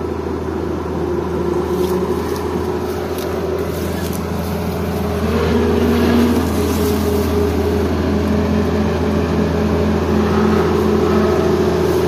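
Diesel engines of a rice combine harvester and the tractor towing it, running steadily, with the level rising a little about halfway through.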